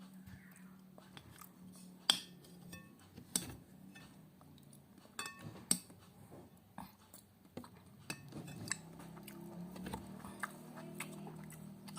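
A metal spoon clinks against a plate every second or two, with chewing between the clinks.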